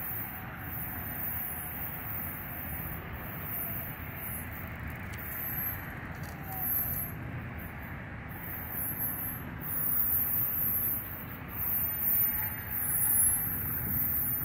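Steady rumble of road traffic, swelling louder a few times in the second half.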